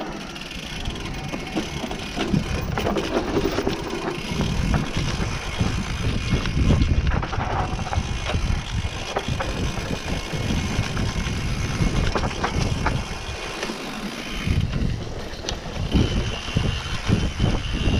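Mountain bike riding over a dirt single track: tyres rolling over the trail and the bike rattling irregularly over bumps and roots.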